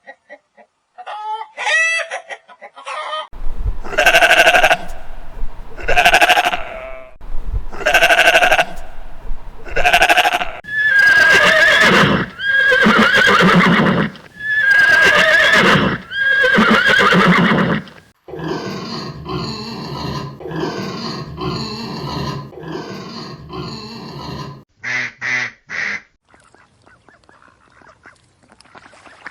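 A series of farm animal calls from several kinds of animal in turn: repeated calls about every two seconds, then longer drawn-out calls, a steadier stretch, and three short calls near the end.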